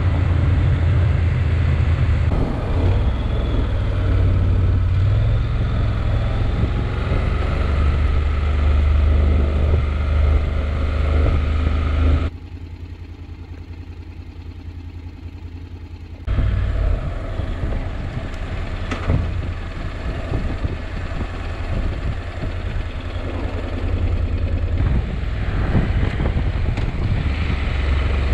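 Honda NC750X motorcycle's parallel-twin engine running under way, a steady low rumble with road noise. About twelve seconds in the engine sound drops away for some four seconds to quieter street sound, then comes back.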